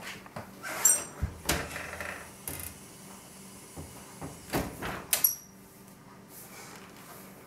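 Metal broiler drawer of a GE Profile gas range pulled open with a few clattering knocks and a short metallic ring about a second in, then pushed shut with more clanks and ringing about five seconds in.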